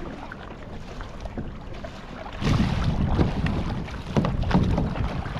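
Kayak paddles dipping and splashing in the sea, with wind on the action camera's microphone. It gets louder about two and a half seconds in, with separate splashes after that.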